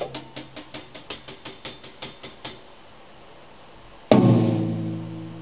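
Drum kit and darbuka playing a fast run of strokes, about five a second, that stops about halfway through. After a short pause the band lands one final loud accent on the drum kit, and it rings out.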